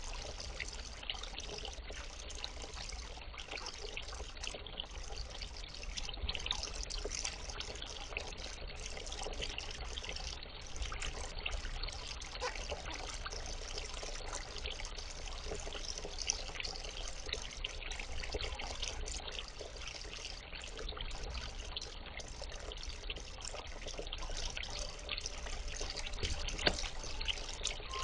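Small backyard pond fountain trickling and splashing steadily into the pond water.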